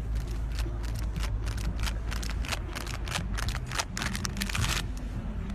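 Wind rumbling on the microphone outdoors, with a fast irregular crackle of sharp clicks that grows denser about halfway through.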